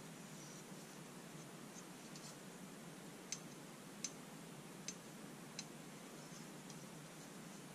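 Four light, sharp clicks about three-quarters of a second apart as a loose Wilkinson Sword scissor blade is handled in the fingers, over a faint steady hum.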